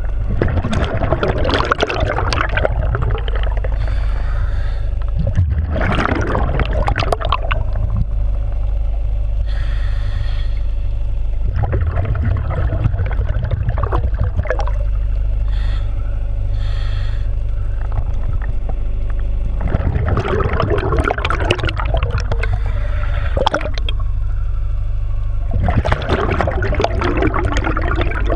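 Scuba regulator breathing heard underwater: five bubbly bursts of exhaled air, a few seconds apart, with short hissing inhalations through the regulator between them, over a steady low hum.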